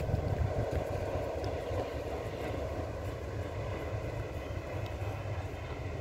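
Distant passing train, a steady rumble, mixed with low fluttering wind noise on the microphone.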